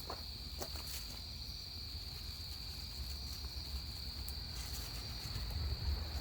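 Crickets chirring steadily on one high note, with a low rumble underneath and a few faint clicks in the first second.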